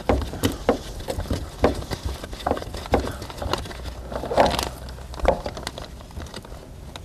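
A gloved hand turning a spin-on oil filter off an aircraft engine's filter adapter: scattered small irregular clicks and knocks with the rub of a nitrile glove on the metal canister.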